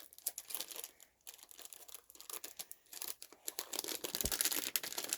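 Plastic snack wrapper crinkling as it is handled and opened: a dense run of small crackles that grows busier and louder in the second half.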